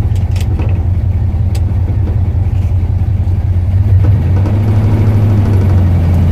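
1974 Ford F250 pickup's engine running as the truck is driven, a steady low drone that grows a little louder about four seconds in. A few light clicks in the first second and a half.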